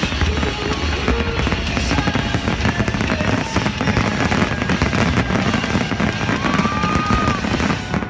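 Fireworks finale: many aerial shells bursting in rapid, overlapping succession, a continuous barrage of bangs and crackling with no gaps. A brief whistle sounds near the end.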